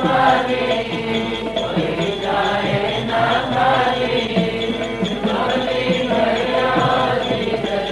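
Harmonium playing the melody of a devotional Sikh kirtan, with sustained reedy chords under the tune.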